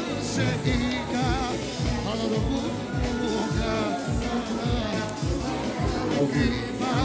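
Music: a song with an ornamented, wavering vocal line over a steady beat of about two strokes a second.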